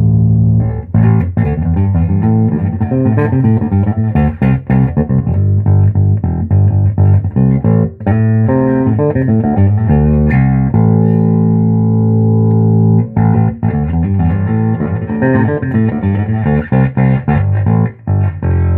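Fender '57 reissue Precision Bass, its volume and tone knobs all the way up, played through a 1966 Ampeg B-15N Portaflex tube bass amp. A plucked bass line of quick notes, with a brief break a little before halfway and a long held note just past halfway.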